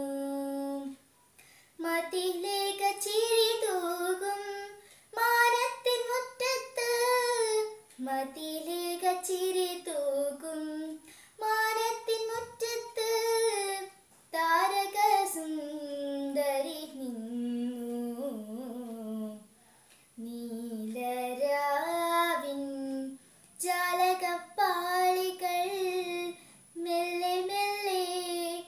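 A young girl singing a Malayalam light song (lalithaganam) solo and unaccompanied, in phrases a few seconds long with short breaths between them.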